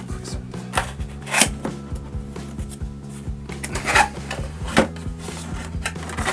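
Background music with irregular knocks, taps and rustles of a microphone box and its packaging being handled and opened. The sharpest knocks come a little over a second in, about four seconds in and near five seconds in.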